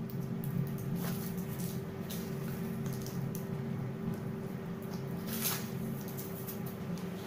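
Baked gata pastries handled on a parchment-lined baking tray: soft crackles and rustles of crisp crust and paper as pieces are lifted, over a steady low hum.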